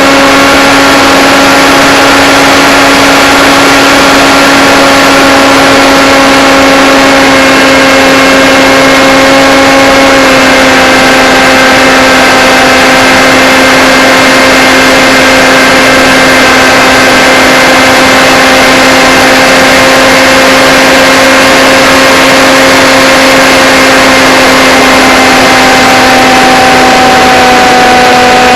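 The electric motor and propeller of a Blade Theory Type W FPV aircraft in flight, giving a loud, steady whine over a rush of air. Its pitch drops slightly about ten seconds in and shifts again near the end as the throttle changes.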